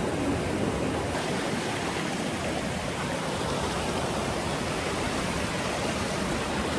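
Steady rush of flowing water from a waterfall or stream, an even hiss with no breaks.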